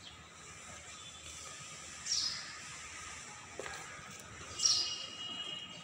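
A bird chirping twice, short high downward chirps about two and a half seconds apart, over faint steady outdoor background noise.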